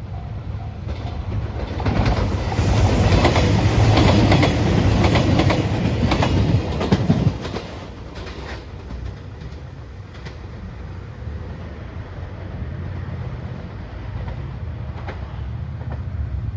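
A train passing over a level crossing, loudest from about two to seven seconds in, with rapid clacks of wheels over rail joints, then a lower rumble as it moves away. A level-crossing bell's repeating ring stops about a second in.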